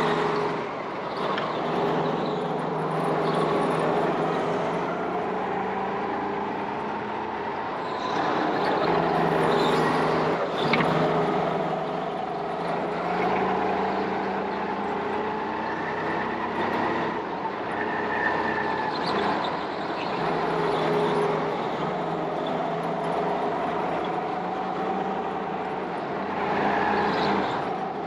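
Go-karts running on a track, the drone of their motors rising and falling in pitch as they speed up and slow down.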